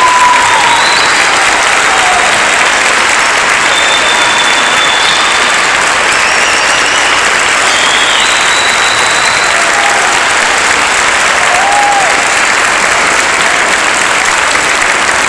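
Large crowd applauding steadily and loudly, with a few brief high-pitched calls rising above the clapping.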